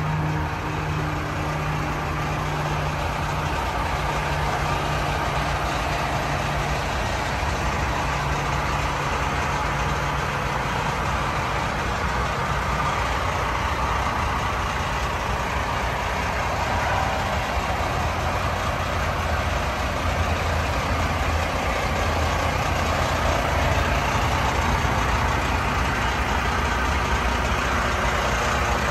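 Semi truck's diesel engine idling steadily: a continuous low rumble with a broad noise over it, the rumble growing a little stronger in the second half.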